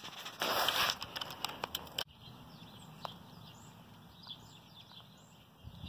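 Faint songbirds chirping, a scatter of short high chirps from about two seconds in. Before that, a brief rush of noise.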